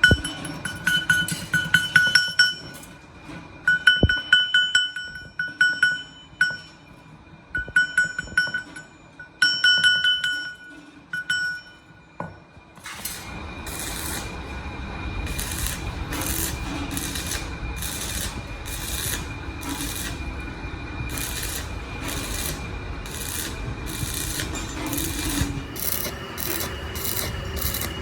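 Metal work on a gearbox shaft. For about the first half, quick clusters of sharp taps that ring like struck steel. Then a hand file rasps steadily back and forth over metal, about one and a half strokes a second.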